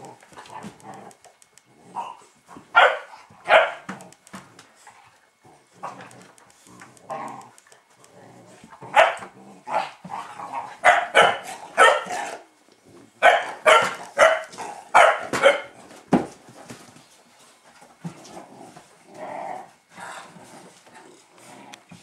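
Fila Brasileiro puppies barking in short, sharp barks as they play-fight, with a burst of barks about three seconds in and a longer run of rapid barks from about nine to sixteen seconds.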